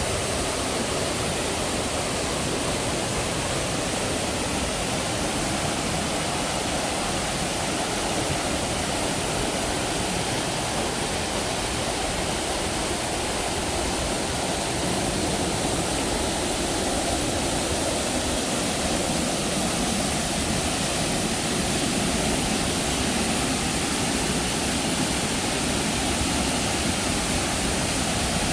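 Water pouring down an artificial waterfall: a steady, unbroken rush.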